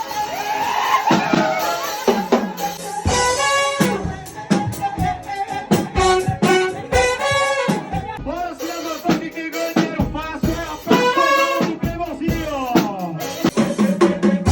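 Band music with brass and drums and a singing voice, the drums striking throughout.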